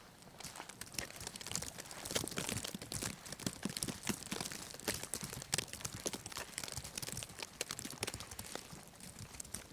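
An irregular run of crunches and clicks in snow, many small impacts a second with no steady rhythm.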